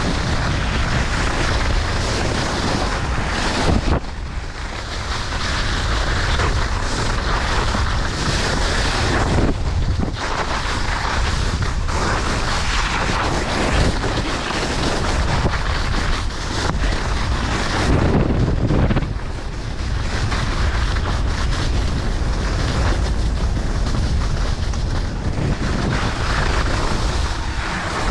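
Heavy wind rushing over the microphone of a skier travelling fast downhill, mixed with the hiss and scrape of skis running on packed snow. The rush wavers in loudness, dipping briefly a few times.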